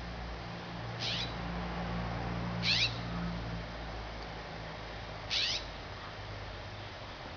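Three short, high calls from an animal, each sweeping downward, a couple of seconds apart, over a steady low hum.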